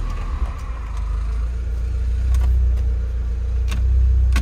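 2003 Saab 9-3's engine just started and idling steadily, a low even hum. A faint high whine fades out over the first second. A few sharp clicks come in the latter half.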